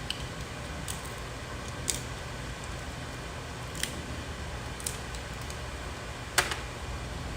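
Crab leg shells cracking and snapping as they are broken open by hand: about six short sharp cracks spread over several seconds, the loudest near the end. A steady low room hum runs underneath.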